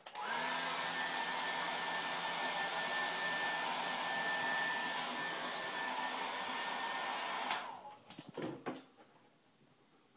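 A small electric motor and fan running steadily for about seven seconds, with a short rising whine as it spins up at the start, then switching off.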